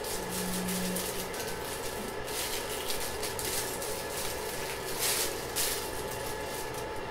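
Clear plastic packaging crinkling and rustling in short bursts as a disposable face mask is unwrapped, over a steady faint hum.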